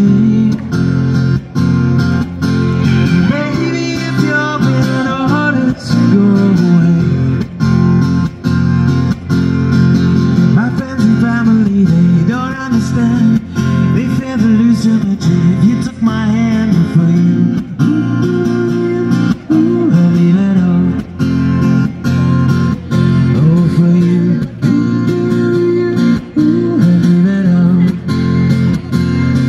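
Acoustic guitar strummed in a steady rhythm and amplified through a small street PA, with a man singing over it into the microphone.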